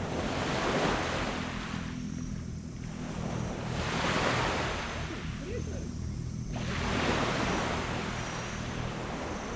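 Small waves breaking and washing up on a sand beach, three swells each rising and falling away over a couple of seconds, about three seconds apart. A low steady hum runs underneath.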